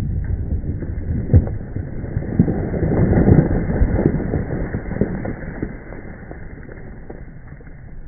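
Broken granite and debris falling and clattering just after a rock blast. It is a rush of many small impacts that swells about three seconds in and then dies away.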